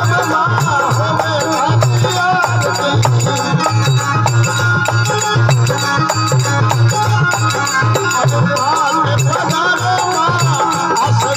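Rajasthani devotional folk music: a wavering melody over a steady, dense low drum beat.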